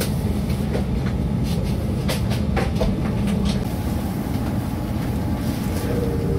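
Steady low rumble inside the cabin of a parked Airbus A340-500 airliner, with scattered light clicks and knocks.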